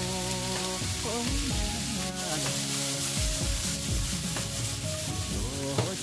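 Broccoli and carrot pieces sizzling and frying in a nonstick pan as they are tossed, under background music.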